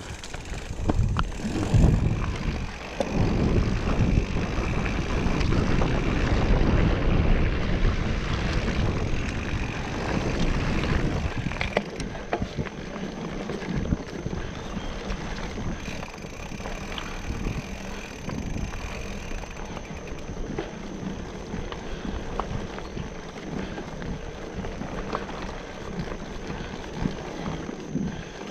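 A bicycle being ridden on a trail: tyres rolling over the ground with rattles and small clicks, and wind buffeting the microphone. It is loudest for about the first ten seconds, then settles to a steadier, quieter rumble.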